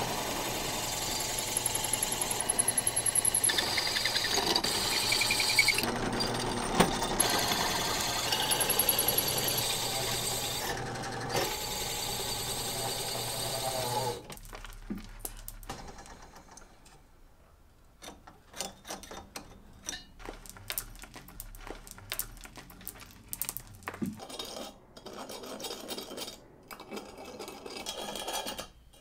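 Drill press running and cutting into aluminium, a steady motor hum with a high whine from the bit, stopping suddenly about halfway through. After that, quieter irregular scrapes and clicks of the aluminium frame being worked by hand.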